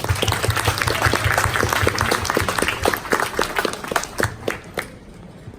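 Audience applauding, starting suddenly and dying away after about four seconds.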